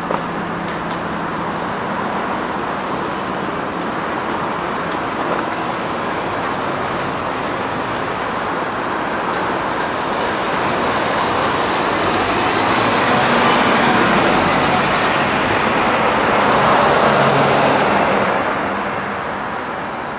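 City bus driving: steady engine and road noise that swells louder over the second half and eases off near the end.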